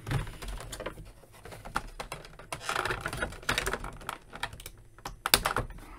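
Clear plastic blister tray of an action figure being handled: irregular crinkling and small clicks, with a sharper click about five seconds in.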